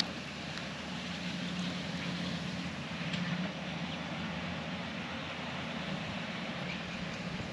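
A steady, distant engine hum under outdoor background noise, with a few faint clicks.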